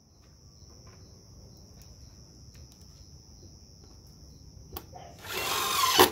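Cordless impact driver driving a screw into a pine bench leg: one short run of about a second near the end, getting louder as the screw goes in, then stopping abruptly. A single click just before it.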